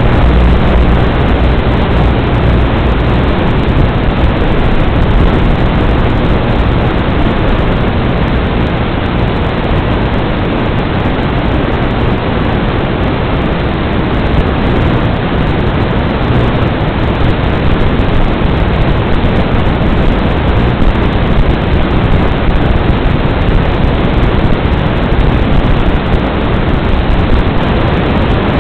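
Loud, steady hiss of static from an analog FPV video link's audio channel, with a faint low hum coming and going underneath.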